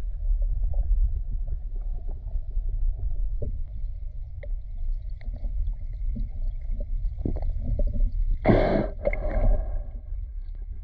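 Muffled underwater ambience picked up by a camera submerged in a river: a steady low rumble with faint scattered clicks, and a louder rush of water noise about eight and a half seconds in.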